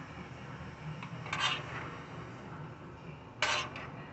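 Kitchen utensils and containers being handled: two short scrapes about two seconds apart, over a low steady hum.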